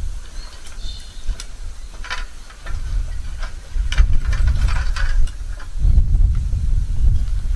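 Clicks, knocks and rattles from a vehicle roll-out awning's metal frame and support poles as the canvas is folded in, with a low rumble that swells and fades twice.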